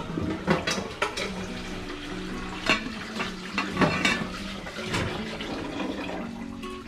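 Stainless-steel steamer pot and lid clinking and knocking as the lid is fitted on, several sharp metallic knocks over a few seconds.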